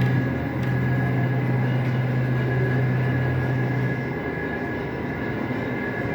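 CNC turn-mill machine running with a steady low hum and a thin high whine. The low hum stops about four seconds in, while the whine carries on.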